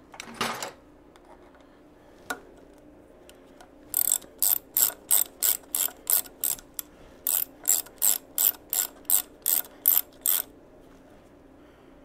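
A 3/8-inch ratchet with an Allen socket clicking in quick back-and-forth strokes, about three a second, as it tightens the shifter clamp bolt on a Harley-Davidson Sportster, in two runs with a short pause between. Before that come a brief rustle of handling and a single click.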